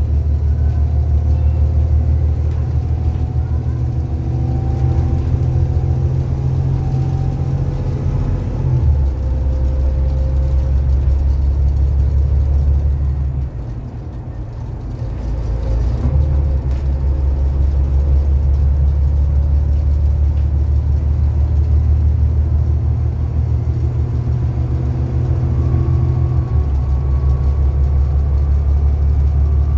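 Volvo B7TL double-decker bus's straight-six diesel engine and drivetrain heard from the upper deck while under way: a steady low drone that changes note abruptly about a third of the way in and again near the end as the gearbox shifts, and eases off briefly around the middle.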